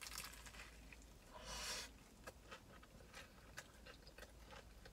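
Faint bite and chewing of a crispy fried chicken sandwich. A short crunch of the breading comes about a second and a half in, then soft, scattered chewing clicks.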